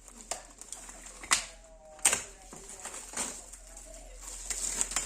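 Scattered sharp clicks and knocks of tools and small parts being handled during amplifier assembly, about five in all, the loudest about two seconds in, with a brief ringing tone about a second and a half in.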